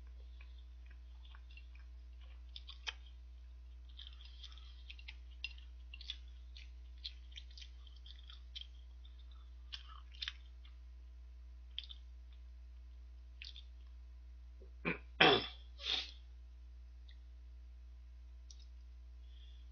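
Close-up eating sounds of boiled dumplings: chewing and mouth smacks with small clicks of wooden chopsticks, scattered through the first two thirds. About fifteen seconds in, three loud throat sounds in quick succession, the loudest of them in the middle.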